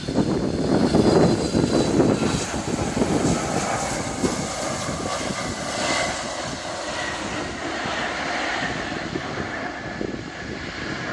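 Boeing 757 jetliner touching down and rolling out on a wet runway, its jet engines roaring. The noise is loudest in the first couple of seconds, with a high engine whine that fades out, then settles to a steady rumble.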